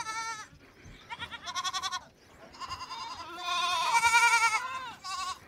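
A large flock of young, roughly four-month-old lambs and kids bleating, with several wavering calls overlapping. The loudest calls come about four seconds in.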